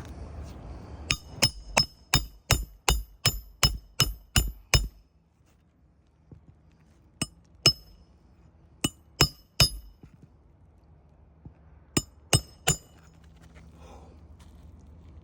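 Sharp, ringing metallic clinks: a quick run of about eleven, roughly three a second, then five more spaced out and a final quick three.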